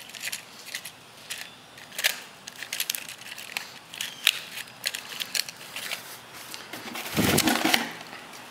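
Handling noise from small survival-kit items: scattered clicks, taps and rustles of packaging and a matchbox being moved about on a concrete floor. About seven seconds in, a louder, longer rustle and clatter as hands reach into a metal ammunition box.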